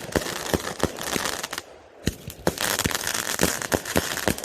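Fireworks crackling: irregular sharp pops over a hiss. It dips briefly about one and a half seconds in, then comes back denser.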